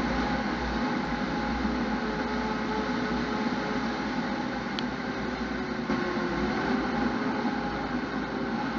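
Fire engine driving, heard from inside the cab: a steady engine drone over road noise, its pitch rising slightly at the start and dipping near the end.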